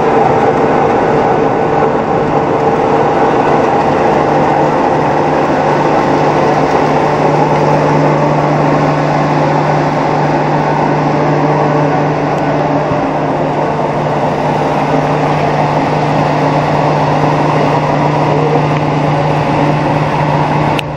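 Fertilizer pellet mill running steadily, pressing chicken manure into pellets: a loud, constant machine hum with a dense noise over it. A steady low hum grows stronger about five seconds in.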